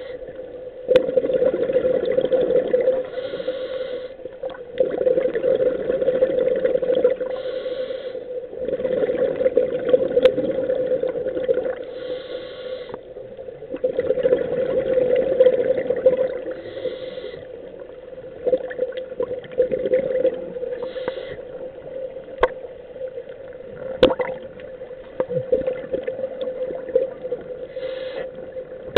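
Scuba diver breathing through a regulator underwater: a short hiss on each inhale, then a few seconds of bubbling exhaust on each exhale, repeating about every four to five seconds over a steady hum.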